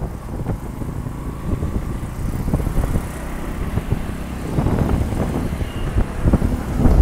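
Motorcycle being ridden along a road: low engine and road noise, uneven, with a louder stretch about five seconds in.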